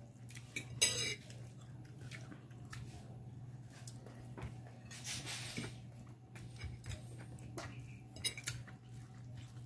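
Fingers working rice and fish on a glass plate: light scrapes and small clinks against the plate, one louder clink about a second in, over a steady low hum.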